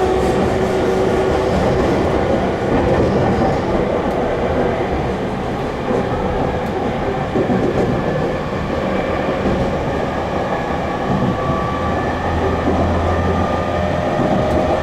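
E231-series electric train running, heard from inside the car: a steady rumble of wheels on rail, with a faint traction-motor whine rising slightly in pitch in the second half.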